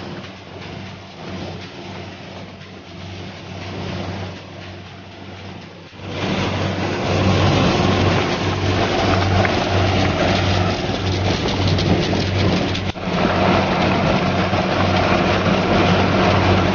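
Corn harvester's engine running steadily with a low hum. About six seconds in it gets much louder, adding a dense mechanical clatter, and it stays loud apart from a brief drop near the end.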